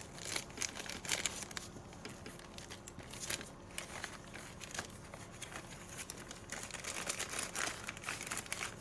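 Plastic bag crinkling and rustling in irregular bursts as it is handled.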